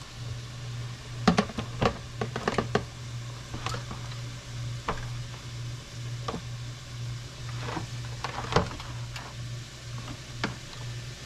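A metal utensil clicking and knocking against a plastic container as ham slices are lifted out: a quick run of sharp taps about a second in, then scattered single knocks. A steady low hum runs underneath.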